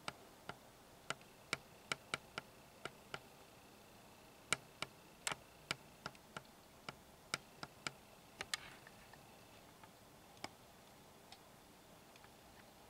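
Sharp clicks at an uneven pace, about one or two a second, thinning to a few scattered clicks after about nine seconds, over a faint steady high tone that fades out near the same point.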